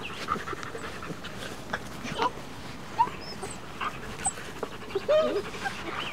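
Afghan hound puppies giving short, scattered squeaks and whimpers while they play, one longer curving squeal about five seconds in.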